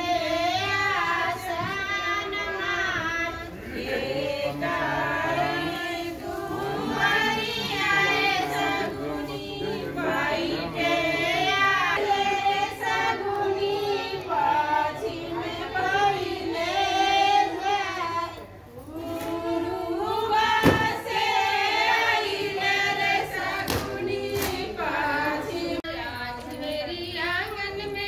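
High female voices singing a song, the melody running on without a break. A brief sharp knock sounds about twenty seconds in.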